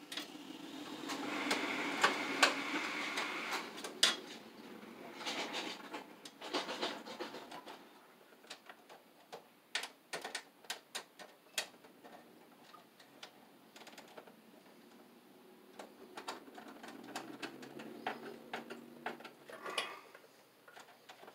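Copper ground wire being bent and worked into place inside a metal breaker panel: scattered clicks and taps of wire against the steel box, with a stretch of rustling in the first few seconds.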